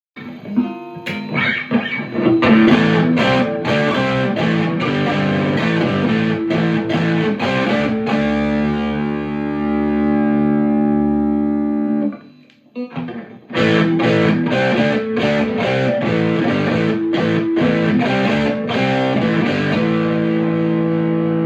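Harley Benton JA-60CC offset electric guitar playing chords struck in a rhythm, with long held chords around the middle and at the end. The playing stops briefly about twelve seconds in.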